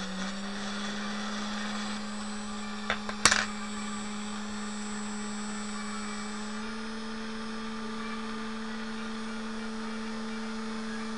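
Small brushless outrunner motor running at speed with a steady whine, its pitch stepping slightly higher about two-thirds of the way through. A couple of sharp ticks about three seconds in. The motor is being run with tape on it as a balancing weight while its vibration is checked.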